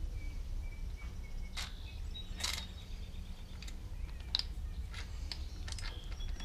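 A few light metallic clicks and taps as steel pushrods are drawn out of a Buick Stage II V6's cylinder head and handled, over a steady low hum.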